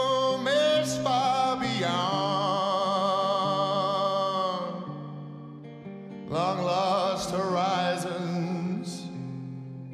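A song: a singer holds long, wavering notes over a steady instrumental accompaniment. The music eases off a little past the middle and the singing returns strongly about six and a half seconds in.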